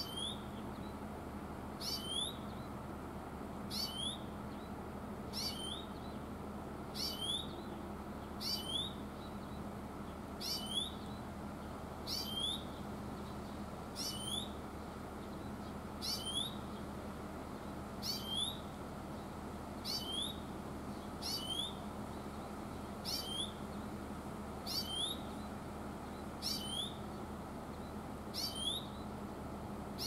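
Grey-capped greenfinch (Oriental greenfinch) repeating its rising "chuiin" call, one short upward-sweeping note about every two seconds, over a steady low background noise.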